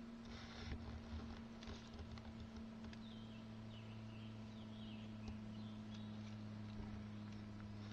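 Faint forest sounds: a songbird singing a series of short, falling chirps, with brief rustles of dry leaves about half a second in and again near two seconds, over a steady low hum.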